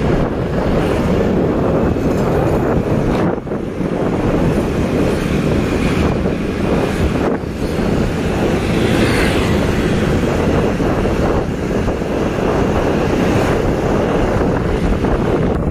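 Wind rushing over the microphone of a moving vehicle, with a steady low rumble of road and engine noise. The noise briefly dips twice, about three and a half and seven and a half seconds in.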